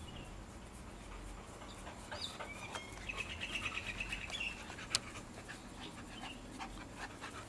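Boxer puppy running on grass with quick, faint breaths and soft patter. A short high warbling call sounds from about two seconds in, and a single sharp click comes about five seconds in.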